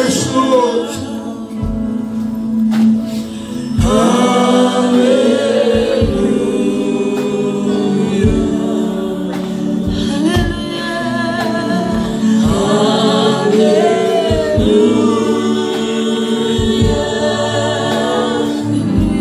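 A group of women singing a gospel worship song together through microphones, with a steady low note held underneath the voices.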